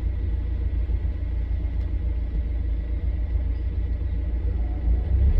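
A vehicle's engine and drivetrain running steadily with a low rumble and a faint steady high whine, recorded to check an abnormal noise suspected to come from the clutch.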